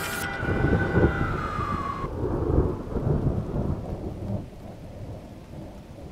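Deep rumbling with heavy low booms, loudest in the first three seconds and dying down after about four. Over the start, a sliding high tone rises, then falls and cuts off about two seconds in.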